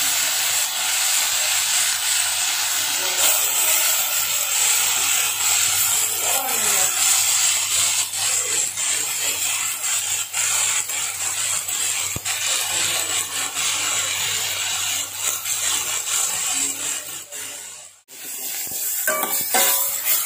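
Onions and freshly added chopped tomatoes sizzling in hot oil in a steel pot, a steady hiss. It cuts off abruptly near the end, followed by a spoon stirring and clinking against the pot.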